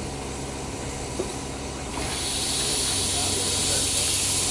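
Standing steam locomotive letting off steam: a loud, steady hiss comes in about two seconds in, over a constant low hum.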